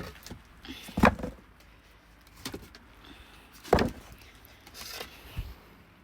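Split firewood logs knocking against each other and the basket as they are loaded in by hand: two loud wooden knocks, about a second in and near four seconds in, with a few lighter knocks between.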